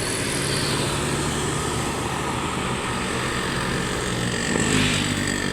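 A heavy road vehicle's engine running close by, steady, over road traffic noise.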